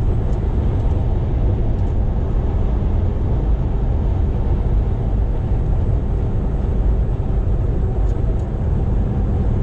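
Steady low rumble of a Volvo semi-truck heard inside the cab while it cruises on the highway: engine drone mixed with road and tyre noise, even in level throughout.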